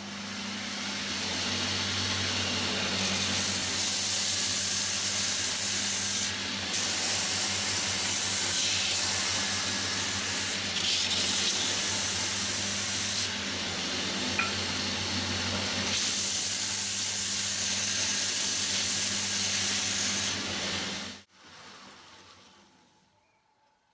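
Belt grinder driven by a treadmill's DC motor, running with a steady hum while something is ground against the belt in long passes with short breaks. The motor speeds up over the first few seconds, then cuts off about 21 seconds in and spins down.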